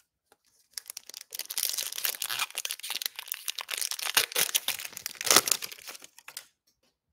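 A shiny plastic 2021 Panini Prizm Draft Picks card pack crinkling as it is torn open and the cards are pulled out. The crinkling starts about a second in, is loudest about five seconds in, and stops shortly before the end.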